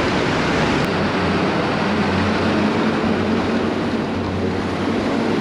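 Steady rush of wind and road noise from a bicycle ridden through a road tunnel and out onto the street, with a low steady hum underneath.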